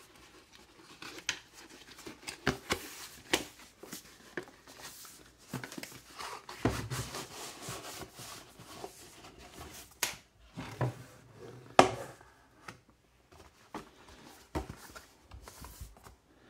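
Cardboard chisel-set packaging being handled and slid open by hand: rubbing and rustling of the card sleeve with scattered light clicks, and a few sharp knocks as the box meets the wooden workbench, the loudest about two-thirds of the way through.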